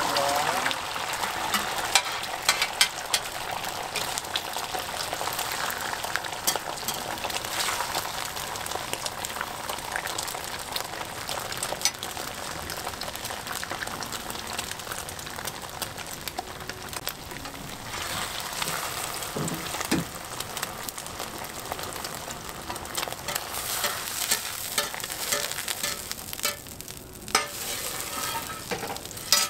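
Beaten egg frying in a thin sheet on a flat-top griddle, sizzling steadily. Scattered clicks and scrapes of a slotted metal spatula against the griddle run through it.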